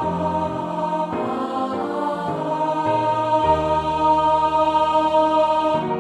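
Choir singing a hymn in long held chords. Just before the end the voices stop and a piano plays on alone.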